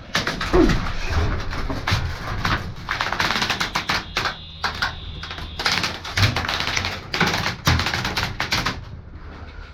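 Airsoft guns firing in fast, clicking bursts, with a pause about four seconds in before the shooting resumes.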